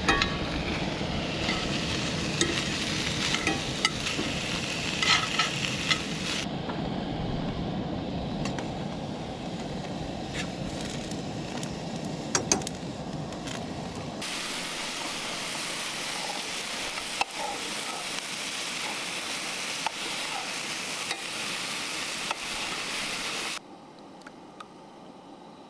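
Food frying and sizzling in a pan, with a utensil stirring and clicking against it. The sound changes abruptly a few times, and is quieter near the end.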